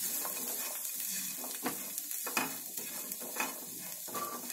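Spatula stirring and scraping boiled chickpeas and grated coconut around a non-stick frying pan, with several scraping strokes over a light sizzle from the still-hot pan.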